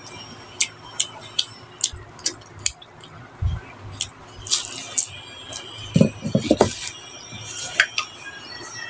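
Close-miked chewing of a crispy fried spring roll (lumpiang Shanghai): scattered sharp crunchy clicks and crackles, with a short low mouth sound about six seconds in.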